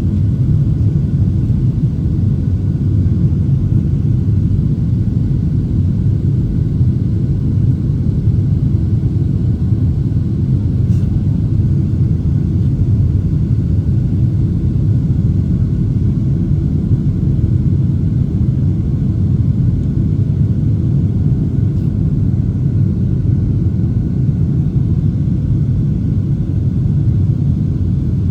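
Steady low rumble inside the cabin of a Boeing 737-700 in its climb after takeoff: the CFM56-7B engines at climb thrust together with air rushing over the fuselage.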